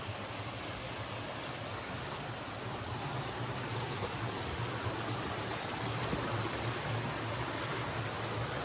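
Steady rush of falling water from a waterfall, growing slightly louder.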